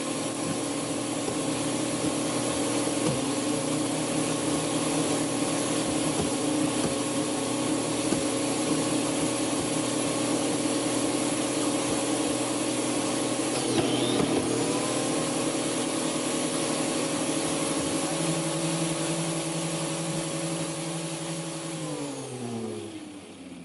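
A grinder spinning a chainsaw-type blade runs steadily inside a box as it shreds a foam Nerf football, with a hiss of foam debris over the motor tone. Near the end the motor is switched off and its pitch falls as it winds down.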